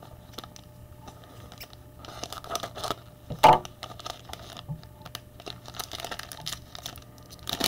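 Cellophane wrapper of a trading-card cello pack crinkling and tearing as it is opened by hand, with scattered small crackles and one sharp, louder noise about three and a half seconds in.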